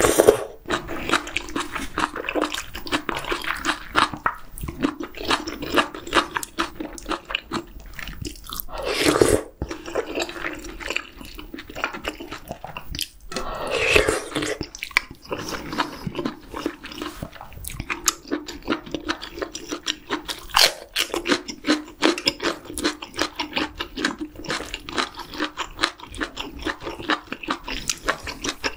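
Close-miked eating of a spicy octopus hot pot with chewy noodles: three loud slurps of hot broth from a spoon, near the start, about nine seconds in and about fourteen seconds in, and between them steady rapid, wet chewing.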